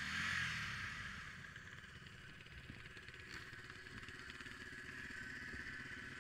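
Motorcycle engine easing down as the bike rolls to a stop, then idling steadily, with a single brief click about three and a half seconds in.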